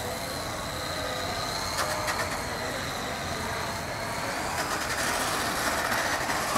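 Electric motor of a 1/4-scale RC motocross motorcycle giving a high, steady whine while it rides on pavement. The pitch rises a little about four to five seconds in, over a steady hiss.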